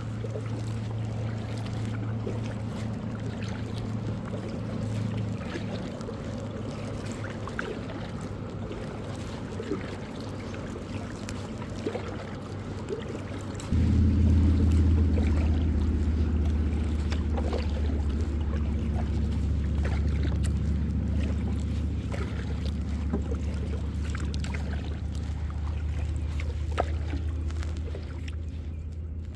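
A kayak being paddled across a lake: faint paddle strokes and water sounds over a steady low rumble, which jumps louder about 14 seconds in.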